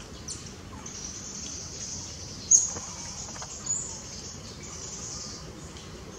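Steady high insect buzzing, with two short, sharp high chirps: a loud one about two and a half seconds in and a fainter one about a second later.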